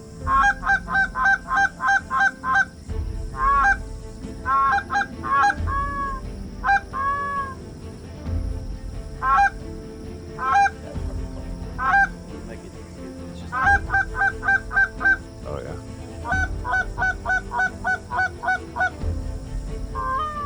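Goose calling: runs of short, quick honks and clucks at about four a second, broken by single drawn-out honks, loud and close, the kind blown on a hand goose call to bring geese in to land.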